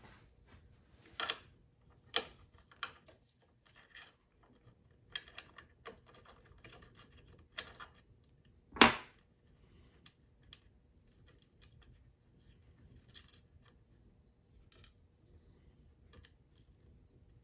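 Scattered small clicks and scrapes of hand tools and small metal hardware as the Z-probe jack is taken off the front of an X-Carve CNC machine, with one sharper knock about nine seconds in.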